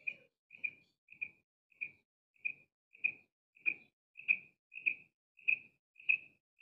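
Single quail calling: one short, high note repeated evenly, about one and a half to two notes a second, growing louder toward the middle.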